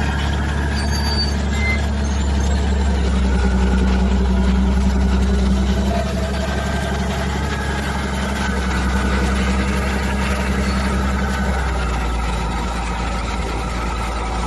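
Heavy engine of a piece of construction machinery running steadily, a continuous low hum.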